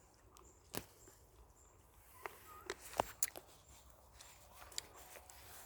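Quiet outdoor background with a handful of faint, irregular clicks and taps, loudest around a second and about three seconds in.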